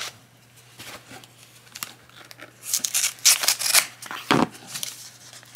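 A folding pocket knife slitting the packing tape and cardboard of a shipping box: a quick run of sharp scraping rasps about halfway through, followed by a single dull knock.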